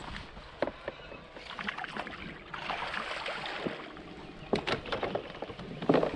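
A hooked bass splashing at the surface beside a fishing kayak as it is reeled in, with a few sharp knocks and clicks near the end.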